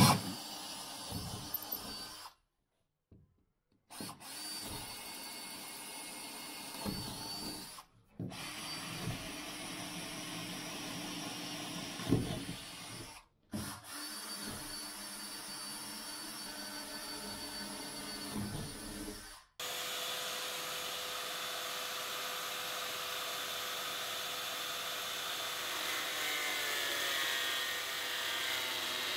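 Cordless drill boring holes through a fibreglass hull in short bursts, over several edited clips. From about two-thirds of the way in, a shop vacuum and a power cutter whir steadily as the cutter cuts a window opening into the fibreglass deck with dust extraction.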